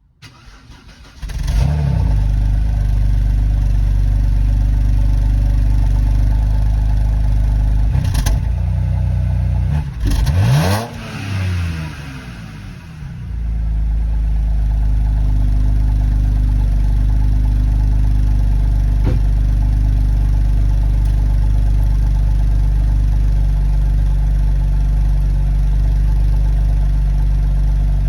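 BMW N52B25 2.5-litre straight-six cranking and catching about a second in, then idling from cold. It is revved once around ten seconds in, the pitch rising and falling back, and the level sags briefly before it settles into a steady idle. The uploader puts the rough running down to camshaft timing faults, with codes P0012 and P0015 (intake and exhaust cam timing over-retarded).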